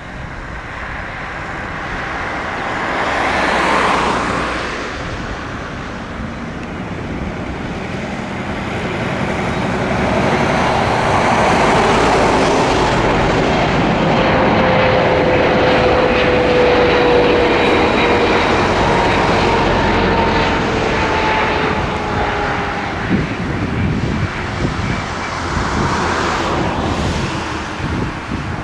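Boeing 777F freighter's twin GE90 turbofans going past. The jet roar builds and stays loud for about ten seconds, with faint whining tones sliding slowly down in pitch as it passes, then eases off near the end.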